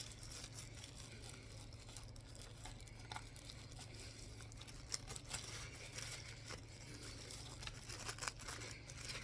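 Faint rustling and scattered light clicks of packaging being handled as an old camera is unboxed, over a steady low hum.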